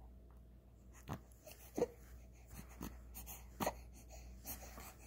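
A four-month-old baby's short breathy grunts, about five of them spaced roughly a second apart, one with a brief pitched note.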